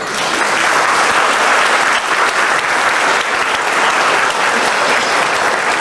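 Audience applauding: dense, steady clapping that starts suddenly.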